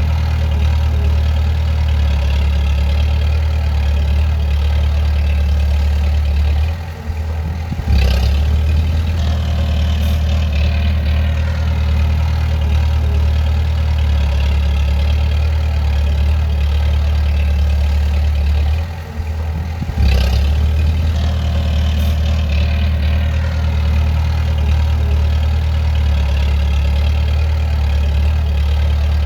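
Bulldozer's diesel engine running with a steady low drone. The drone drops away briefly twice, about a quarter and two-thirds of the way through, and comes back sharply each time.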